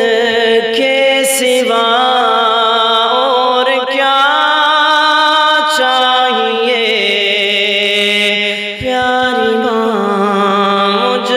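Man singing an Urdu naat, a devotional chant, in long held notes that bend and slide between pitches.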